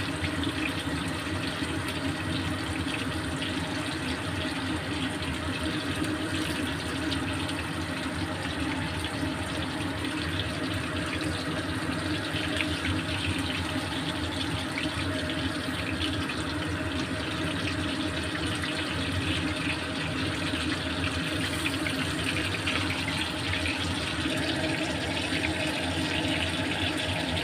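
Meat slices shallow-frying in a little oil in a stainless steel wok, sizzling and crackling steadily.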